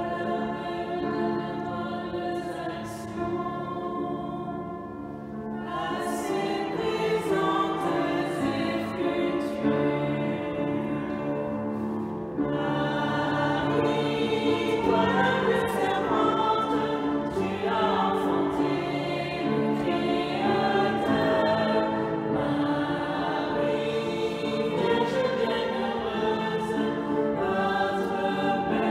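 A group of voices singing a French hymn to the Virgin Mary with long, held notes. The singing grows louder about six seconds in and again near the middle, as a new verse begins.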